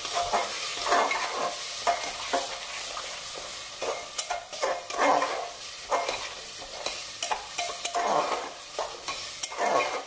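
Masala of onion, ginger-garlic paste and spices frying in mustard oil in an aluminium pressure cooker, sizzling steadily while a steel spatula stirs and scrapes the pot's base in repeated strokes. This is the bhuna stage, the masala being sautéed until the oil separates.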